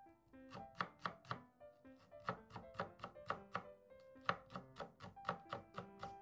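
A chef's knife chopping green onions on a wooden cutting board: a run of quick strikes, about three to four a second, with short pauses, over background music.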